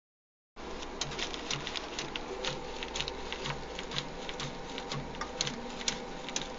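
Hand-made studio sound effect: rhythmic mechanical clicking and tapping, about three beats a second, over a steady low hum.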